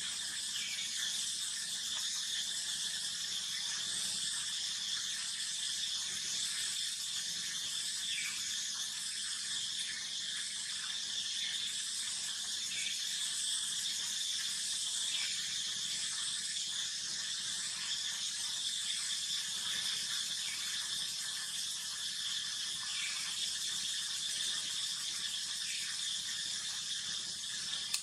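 Steady high-pitched outdoor insect chorus, a continuous shrill drone with a gently pulsing upper layer.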